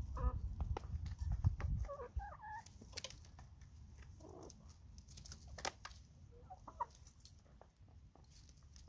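Hens clucking in short, soft calls while they peck food from a plastic dish, with many sharp beak taps and clicks. A low rumble runs through the first two seconds.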